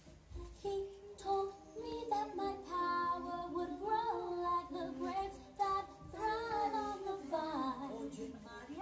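Singing in a high voice, a song melody with held notes that slide between pitches.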